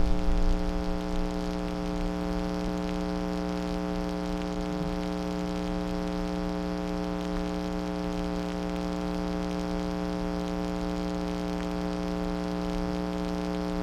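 Loud music fades out within the first second, leaving a steady electrical buzz of one unchanging pitch over a faint hiss, like mains hum on the audio track.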